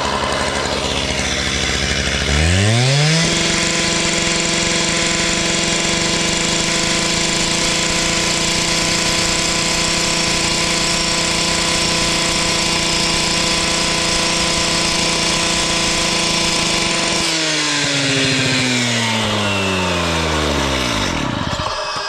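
Petrol cut-off saw (disc cutter) idling, then revved up sharply about two seconds in and held at full speed for about fourteen seconds, then throttle released so it winds back down toward idle near the end.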